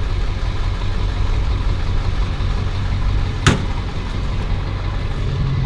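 Truck engine idling steadily, with a single sharp knock about three and a half seconds in. A deeper, steadier hum grows louder near the end.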